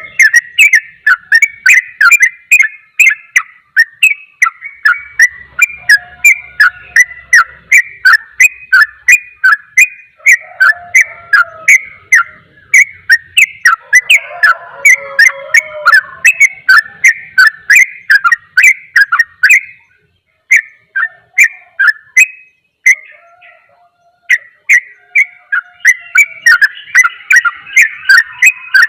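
Yellow-vented bulbul (trucukan) singing a rapid, unbroken run of loud chirping notes, about three a second, briefly thinning out about twenty seconds in before carrying on.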